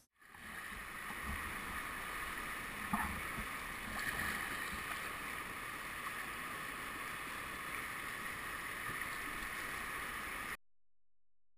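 Rushing water of a shallow whitewater rapid heard from a kayak running it, a steady rush with a brief knock about three seconds in. The sound cuts off suddenly about a second before the end.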